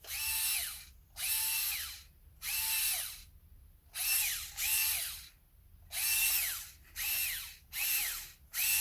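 A power drill triggered in short bursts, about one a second. Each burst's motor whine rises, holds briefly and winds down.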